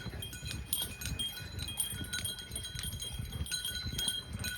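Small bells worn by a herd of horses clinking and ringing irregularly as the animals move, with a low rumble of movement underneath.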